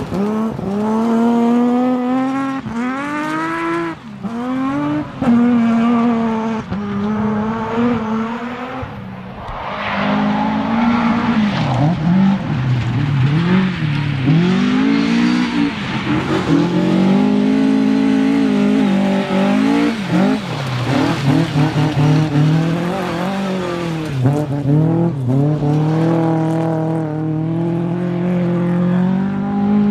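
Rally car engines at full throttle, revving up through quick gear changes, lifting off and accelerating again as the cars drive a stage.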